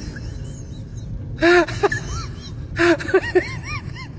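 An animal giving short pitched calls that rise and fall: one loud call about one and a half seconds in, then a quick run of six or so calls near the end.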